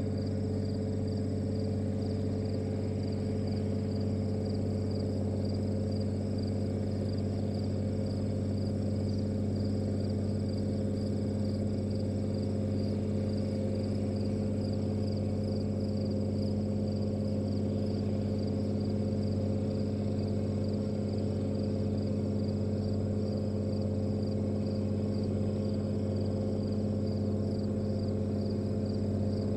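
Steady outdoor webcam ambience: a constant low hum with a few steady tones, and over it a high chirring that pulses evenly throughout. Nothing louder stands out.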